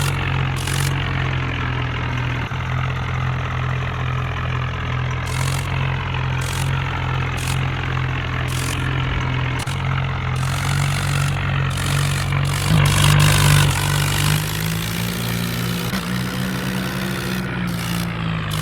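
A vehicle engine running steadily at a low, even pitch. About thirteen seconds in it grows louder and its pitch rises a little, then settles at the higher pitch.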